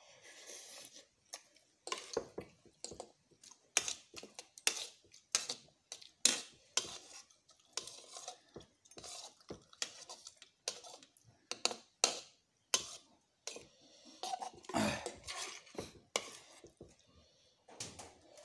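Fork and spoon clicking and scraping against a bowl of instant noodles while eating, in sharp irregular clicks about one or two a second, with mouth sounds of eating between them.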